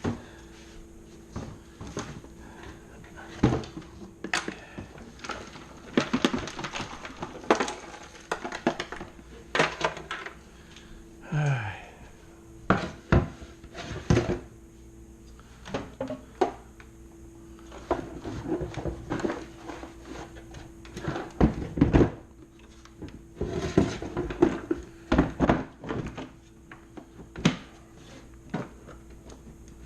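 Irregular clunks, knocks and scraping from hard objects being handled and set down, dozens of separate strikes, over a faint steady hum.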